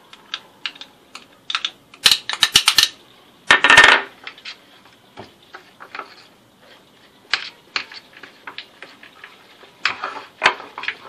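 A spoon clicking and scraping against a glass dish while stirring chocolate ganache with crisp feuilletine and ground almonds. The loudest scrapes come about two and four seconds in and again near the end.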